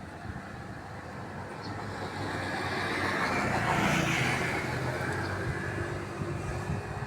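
A motor vehicle passing by, its noise swelling to a peak about four seconds in and then fading away.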